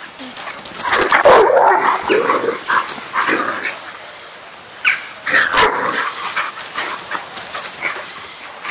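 Irish Wolfhound barking repeatedly while play-chasing, in two loud bouts about a second in and about five seconds in, with fainter barks after.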